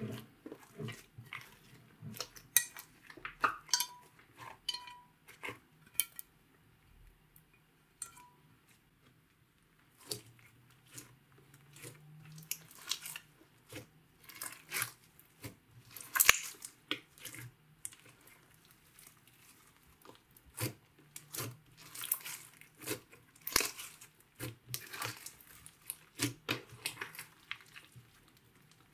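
Hands squishing, pressing and stretching a green glitter slime, giving irregular sticky clicks, pops and crackles. In the first few seconds, short squeaks and knocks come from the slime and hands against a glass baking dish.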